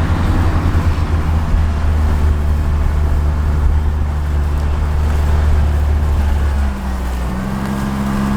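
Engine running steadily, its pitch dipping and then stepping up slightly about seven seconds in.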